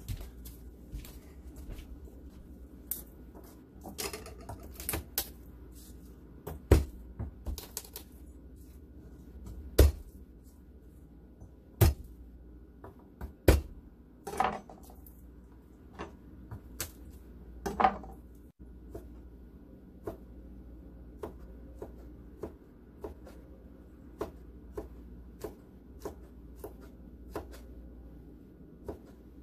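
Chef's knife chopping garlic cloves on a plastic cutting board. Scattered taps and a few sharper, louder knocks in the first half, then a steady run of light chopping taps about two a second.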